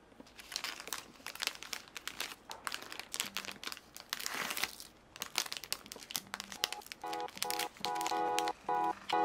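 Thin clear plastic treat bag crinkling and rustling as a madeleine is slipped into it and the bag is handled. Background music with short repeated chords comes in near the end.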